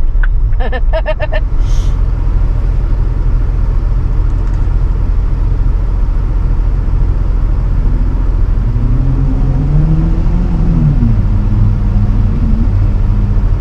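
Jeep Cherokee Trailhawk driving on a rough, muddy off-road trail: a steady low rumble of engine and drivetrain. About two-thirds of the way through, the engine note rises and then drops back as the Jeep is driven through a mud hole.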